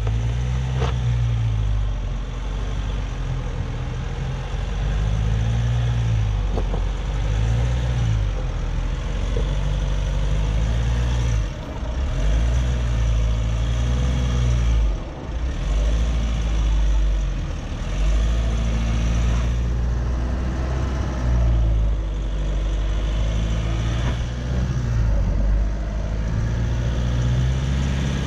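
Jeep engine running while being driven off-road, its pitch rising and falling again and again as the throttle is worked.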